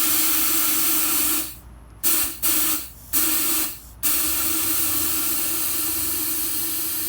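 Nitrous oxide hissing out of a car's nitrous system as it is purged to clear the lines. The hiss cuts out about a second and a half in, comes back in three short bursts, then runs steadily from about four seconds in until it stops sharply at the end.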